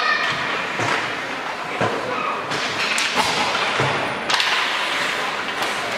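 Ice hockey play in an indoor rink: several sharp knocks of sticks and puck spread through the few seconds, over steady, echoing rink noise of skates on the ice.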